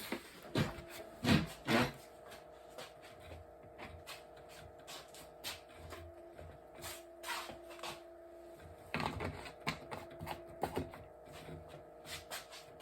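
Macintosh external floppy drive working a disk: a steady motor hum that stops and starts several times, with clicks and knocks of the mechanism, the loudest knocks in the first two seconds. The freshly cleaned drive is being tested after its eject mechanism was found gummed up.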